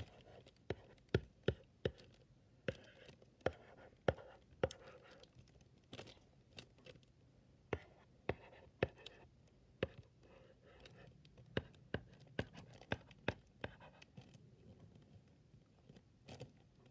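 Marker writing on a small handheld whiteboard: faint scratchy strokes broken by many irregular sharp taps against the board.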